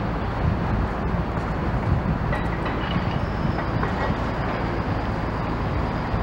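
Steady mechanical rumble with wind buffeting the microphone.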